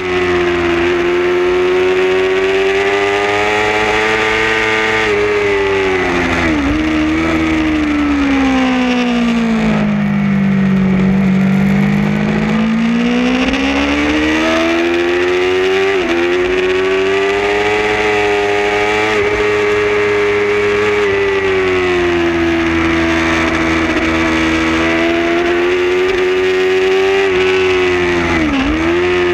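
Racing motorcycle engine at high revs, heard from the bike itself, with brief dips in pitch at gear changes. About ten seconds in the revs fall steadily as the bike slows for a corner, then climb back up; wind rushes over the microphone throughout.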